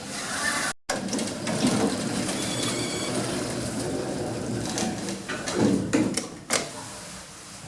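Goods lift running: a steady mechanical hum and rattle as the car travels, with a few clunks and knocks about two-thirds of the way through.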